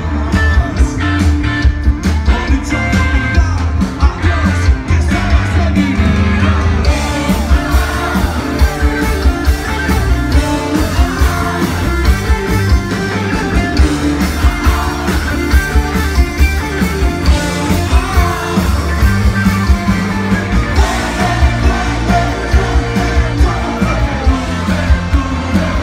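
Rock band playing live with a lead singer, drums keeping a steady beat under guitars and bass. About seven seconds in, the cymbals come in and the sound gets fuller.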